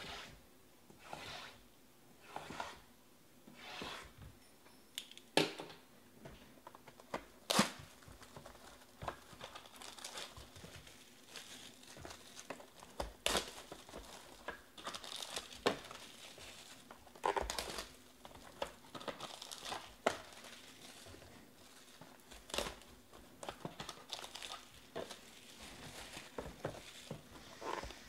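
Plastic shrink wrap crinkling and tearing as it is stripped off a sealed box of baseball cards, with several sharp snaps where the plastic rips.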